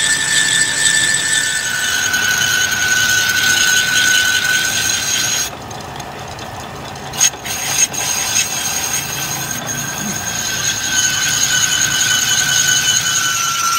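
Metal lathe boring out the inside of a motorcycle wheel hub's brake drum, the cutting tool giving a steady high-pitched squeal over the running machine. About five seconds in the squeal stops for a couple of seconds, with two short knocks, then comes back.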